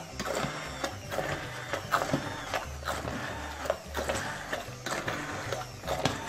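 Immersion blender running in a pot of soft cooked pear chunks, puréeing part of the pear jam, with a few sharp clicks along the way. Background music plays underneath.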